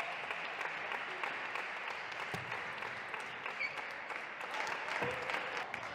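Spectators applauding a won point at a table tennis match, dense steady clapping from a crowd.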